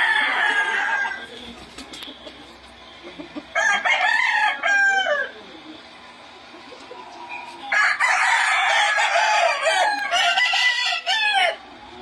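Gamecocks crowing in turn: one crow at the start, another about 3.5 s in, and a longer stretch of crowing, several crows running together, from about 8 s to near the end.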